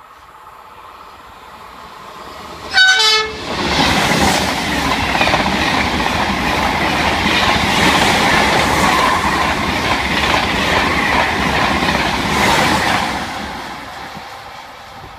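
TGV Duplex high-speed train, two sets coupled, sounds a brief horn blast about three seconds in, then passes at speed with loud wheel and air rush that fades away near the end.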